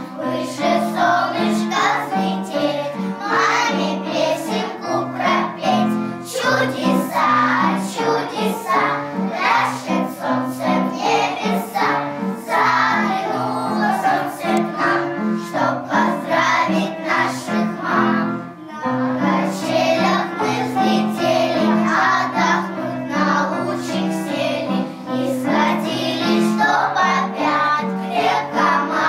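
A group of young children singing a song together in unison over an instrumental accompaniment with a steady, repeating bass line.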